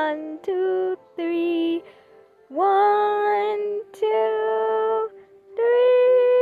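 A high voice singing slow, sustained notes in short phrases, with brief pauses between them; a long held note begins near the end.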